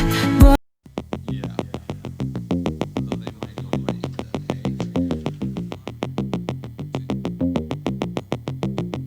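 Background electronic music: a loud song cuts off about half a second in, and after a brief silence a synthesizer and drum-machine track starts, with a fast, steady beat and low bass notes.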